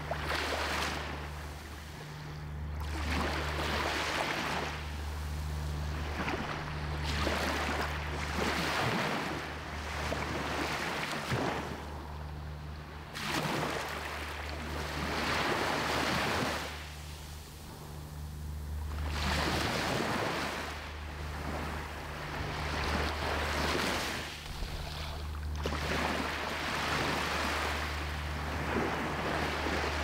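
Small sea waves breaking at the shoreline and washing up the sand close to the microphone, a rushing surge of foam swelling and fading every two to three seconds. A steady low rumble runs underneath.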